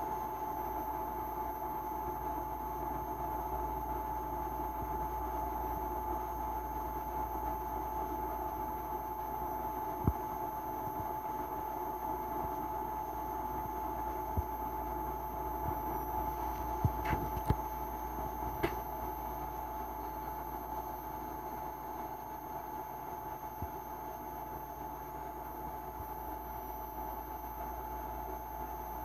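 Steady background hum with a constant mid-pitched whine, broken by a few faint clicks around the middle.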